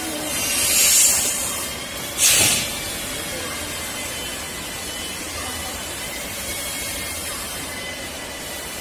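Compressed-air hiss from a gummy candy depositor's pneumatic cylinder and valves: a longer swelling burst near the start, then a short sharp one, followed by a steady hiss.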